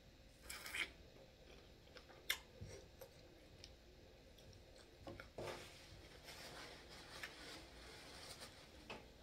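Soft eating sounds: a few sharp mouth clicks and smacks while eating a boiled shrimp, then quiet rustling of a paper towel near the end.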